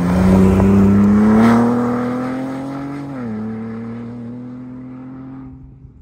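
Ford Bronco Raptor's twin-turbo V6 at full throttle, accelerating hard past the microphone. The engine note climbs for about three seconds, drops with an upshift, then fades as the truck drives away, cutting off just before the end.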